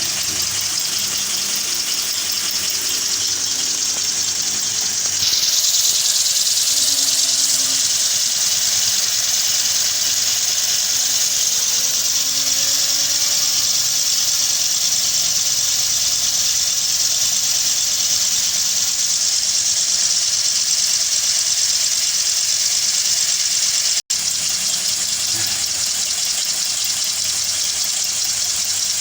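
Small homemade model steam engine running, its steam hissing steadily as the valve and piston work back and forth; the hiss gets louder about five seconds in, and the sound drops out for a moment near the end.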